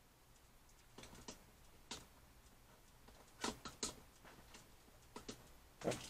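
Scattered faint clicks and light taps, like small objects being handled on a desk, with a few sharper knocks around the middle and one near the end.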